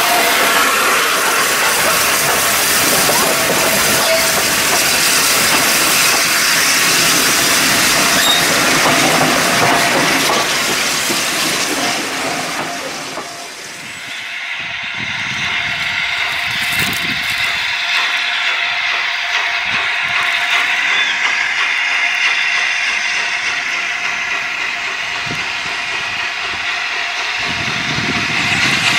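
LNER Peppercorn A1 three-cylinder Pacific steam locomotive 60163 'Tornado' passing close by, with a loud steady hiss of steam. About halfway through the sound dips briefly. After that the locomotive is heard further off, working towards the listener with its exhaust.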